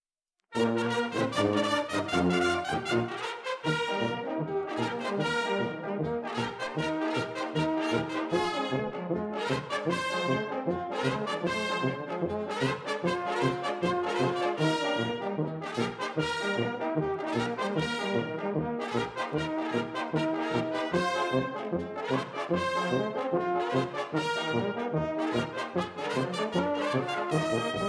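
A Bersaglieri brass fanfare band playing a lively military march, with brass melody over a steady beat. It starts about half a second in.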